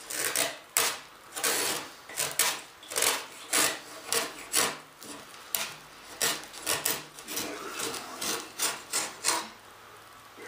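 Single-edge razor blade scraping the fiberglassed, resin-coated edge of an RC airplane part, in quick repeated rasping strokes at about two a second. The strokes stop about a second before the end.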